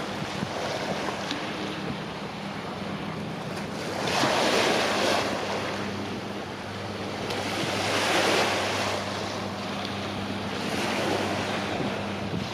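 Small waves washing against the shore in slow swells about every three to four seconds, over a steady low engine hum of passing vessels.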